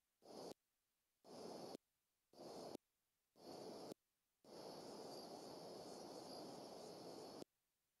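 Faint rushing hiss from a nest-cam microphone. It fades in and cuts off dead four times in short spurts with total silence between, then holds for about three seconds from about halfway in before cutting off again, the pattern of a noise gate switching the audio on and off.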